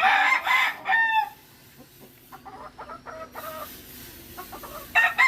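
Gamefowl rooster crowing: a loud crow over the first second or so, a few soft clucks, then another crow starting near the end.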